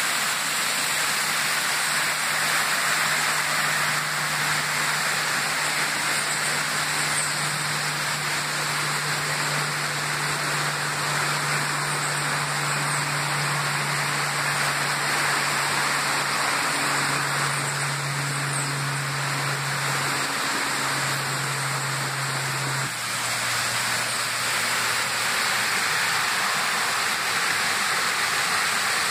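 Rainforest mountain stream rushing over rocks in small cascades: a steady, even rush of water. Underneath, a faint low hum steps down in pitch a few times and stops a little over three-quarters of the way through.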